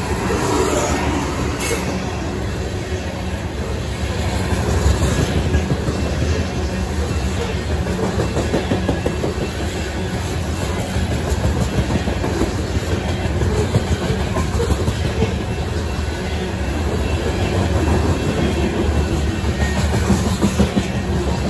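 Covered hopper cars of a long freight train rolling past: a steady rumble of steel wheels on rail with clickety-clack.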